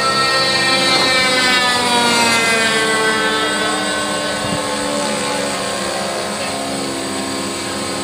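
DJI F550 hexacopter's six electric motors and propellers buzzing as it hovers under GPS position hold. Several whining tones fall in pitch over the first few seconds, then hold steady.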